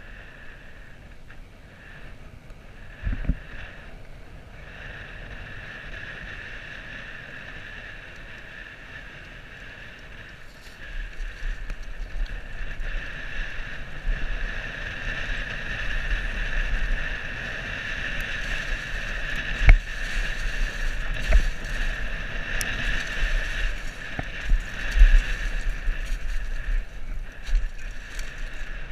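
Mountain bike ridden downhill, heard from a helmet camera: wind on the microphone and tyre noise, turning into steady rattling and thumping as the bike runs over a rough dirt trail about a third of the way in, with a few sharp knocks.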